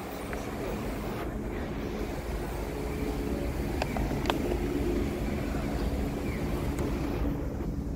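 City street traffic: a motor vehicle's engine running steadily, with a couple of small clicks about four seconds in.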